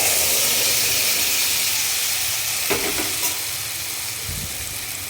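Besan chilla batter frying in hot mustard oil in a pan: a loud sizzle that starts abruptly and slowly eases off, with a couple of light utensil taps about halfway through.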